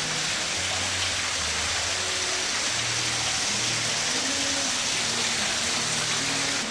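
Steady rushing water, like a waterfall, over soft music with slow, held low notes.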